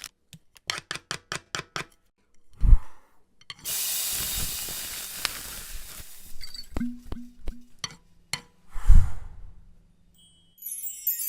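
A sequence of cooking sound effects: a quick run of about a dozen sharp clicks, a heavy thud, a steady hiss for about three seconds, a few knocks, then a second thud. A chiming tune comes in near the end.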